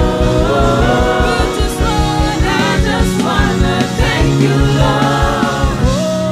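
Several voices singing a gospel worship song in harmony, with a fast pulsing bass beneath them.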